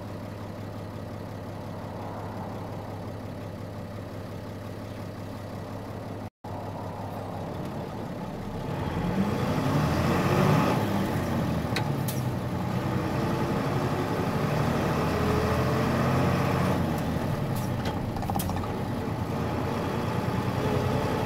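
Diesel engine of a Nissan Diesel Space Runner KC-RM211GAN city bus heard on board, idling steadily, then revving up with a rising pitch about nine seconds in as the bus pulls away. It keeps running louder under load to the end, with a few sharp clicks.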